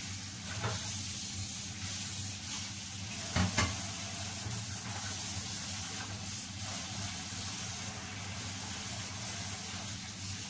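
Tap water running steadily into a kitchen sink while raw chicken liver is washed by hand, with a light knock under a second in and a louder knock about three and a half seconds in.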